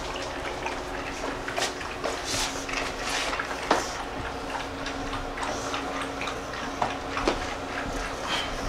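Scattered light knocks, scrapes and rustles as a large dog is lifted and steadied on a cushion atop a glass shop counter, over a faint steady hum.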